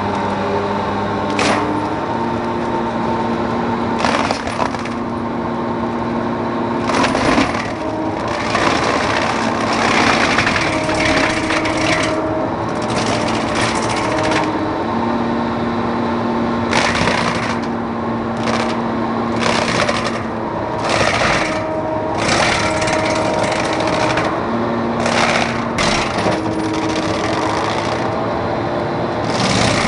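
Seppi BMS excavator mulcher with hydraulic drive running under load, a steady machine hum that steps up and down in pitch, broken again and again by bursts of cracking and splintering as the rotor shreds ash trunks and branches.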